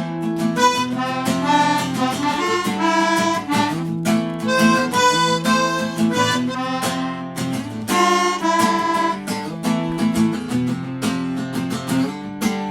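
Instrumental break in a song: a harmonica plays a melody of held notes over strummed acoustic guitar chords.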